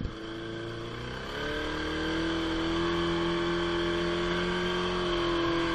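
Boat motor running, speeding up about a second and a half in and then holding a steady, even note.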